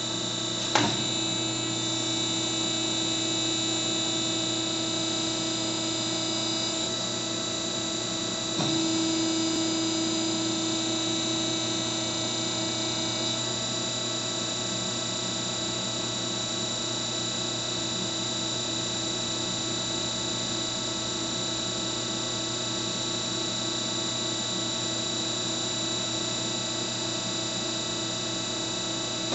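3C CR138RIMW CNC angle roll machine running, its drive making a steady whine as the three rolls feed and bend 1-inch steel round tube into an arch. A sharp click comes about a second in and another near nine seconds, where the whine gets slightly louder.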